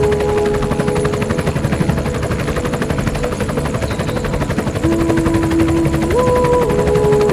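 Loud, steady noise of an aircraft in flight, with a rapid, even fluttering beat. Held tones step up and down in pitch a few times near the end.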